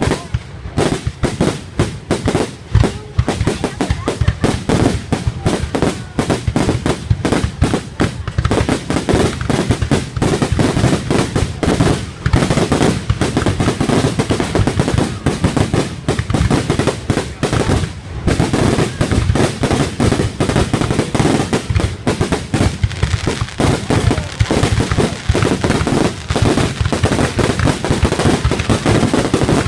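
Fireworks going off in a dense, unbroken run of rapid bangs and crackles, many per second.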